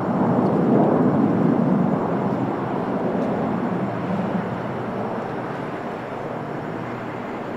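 Airbus A320-214 airliner's twin CFM56 jet engines at takeoff power, a broad steady roar that is loudest at first and slowly fades as the aircraft climbs away.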